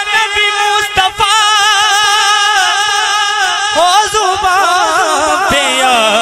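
A man singing a naat unaccompanied, long melismatic notes with a strong vibrato, a brief break about a second in and a new rising phrase about four seconds in.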